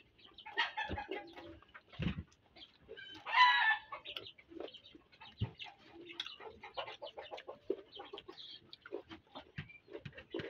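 Chickens clucking in short, scattered calls, with one louder, drawn-out call about three and a half seconds in.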